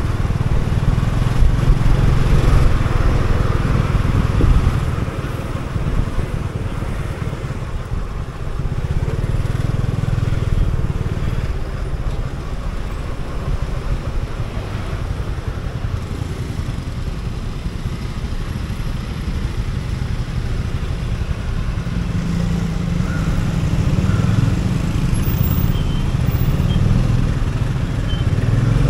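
Scooter-type motorcycle engine running while riding through city traffic, with steady low rumble on the microphone that is louder in the first few seconds, eases off about five seconds in and builds again near the end.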